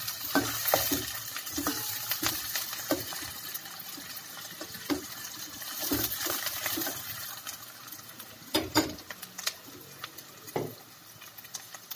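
Chopped onions, garlic and ginger sizzling in hot oil in a stainless steel pot while a spoon stirs them, with scattered clinks and scrapes against the pot. The sizzle thins out over the second half.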